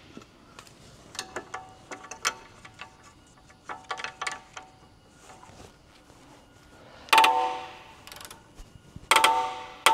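A wrench ratchets in a run of short clicks as a control-arm bolt is tightened. Then come two much louder, ringing metallic clicks near the end: the torque wrench clicking over at its set torque of 140.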